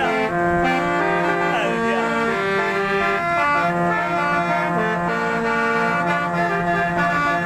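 Old-style multi-tone musical car horn playing a tune: several held notes sounding together, stepping to new notes every half second or so.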